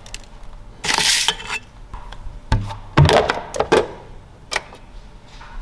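Plastic parts of a drip coffee maker being handled and clicked into place: a brief rustle about a second in, then a few sharp knocks and clicks.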